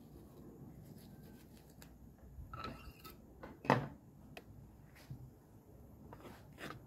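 A kitchen knife cutting into a red onion held in the hand, faint crisp snips as the blade scores the layers, followed about halfway through by one sharp knock, with a few lighter clicks after it.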